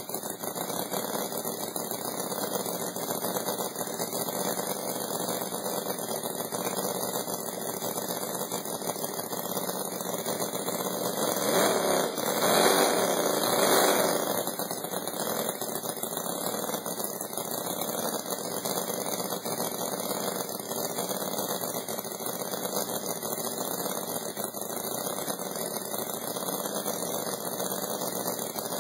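A 44 cc four-stroke model V8 engine running steadily. It grows louder for a few seconds near the middle as it is revved, then settles back to its steady run.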